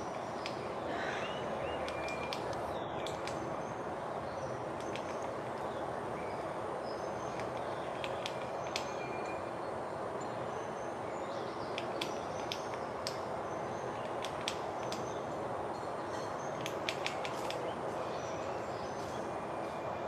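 Outdoor nature recording: a steady hiss of background noise with irregular sharp taps from a coppersmith barbet pecking at a dead tree trunk, digging out a nest hole. Faint high bird chirps come and go over it.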